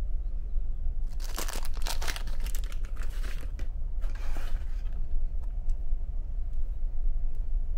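Cardboard box and paper insert of a small toy ferry model being opened and handled, rustling and crinkling in bursts from about one to five seconds in, with a few light clicks, over a steady low hum.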